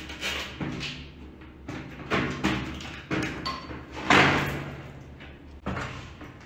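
A string of hard plastic clunks and knocks as a loose toilet seat and lid are handled against the ceramic bowl, the loudest about four seconds in with a short ring after it.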